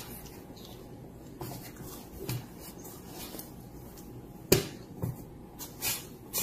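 Quiet room tone with a few faint, short taps and knocks; the sharpest is about four and a half seconds in.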